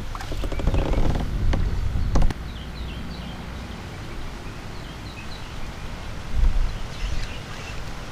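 Small bird chirping in short, high, repeated notes from about two and a half to five and a half seconds in, over a low steady rumble. A few knocks and one sharp click from a fishing rod and spinning reel being handled come in the first two seconds.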